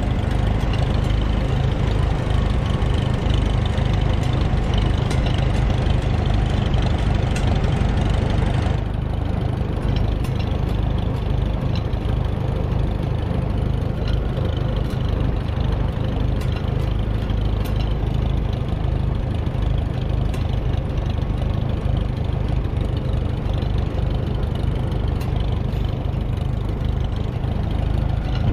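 Antique Farmall tractor engine running steadily at low speed while the tractor is driven along, heard close up from the seat. A higher hiss over the engine drops away about nine seconds in.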